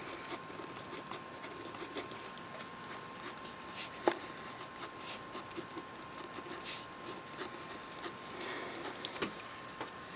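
Pen writing on notebook paper close to the microphone: a continuous soft scratching of strokes with many small irregular ticks, and one sharper tap about four seconds in.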